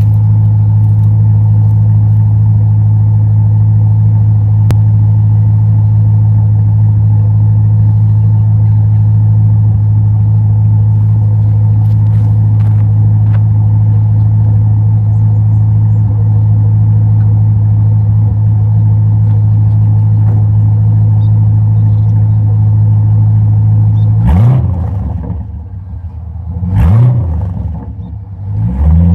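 Holden VY SS Crewman's 5.7-litre V8, fitted with a mild cam and twin dump exhaust, idling steadily and loud, heard right at the exhaust outlets. Over the last five seconds it is blipped up in a few short revs that rise and fall back.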